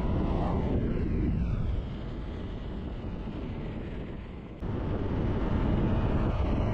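Wind and road rush of a motorcycle at speed, with oncoming vehicles swishing past, each one falling in pitch as it goes by. The level jumps up suddenly about two-thirds of the way through.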